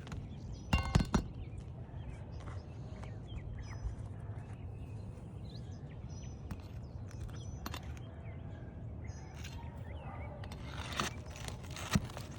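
Metal pry tool working roofing nails out of asphalt shingles: a cluster of sharp metallic clicks and knocks about a second in, scattered ticks, and more clicks near the end, over a steady low rumble.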